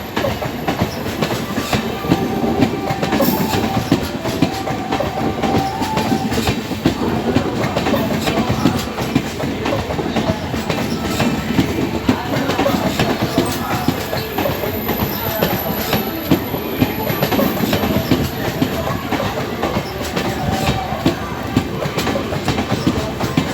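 Indian Railways express train's coaches rolling past, their wheels clattering steadily over rail joints and points.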